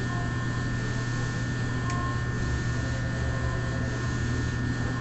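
Inside an E217-series commuter train standing at a station, with a steady electrical hum and air-conditioning fan noise. A few faint, brief tones sound in the background.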